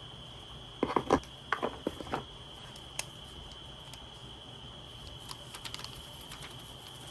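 Handling noises from unboxing an iPad and its packaging: a quick cluster of taps and knocks about a second in, a single click near three seconds, then a few lighter ticks.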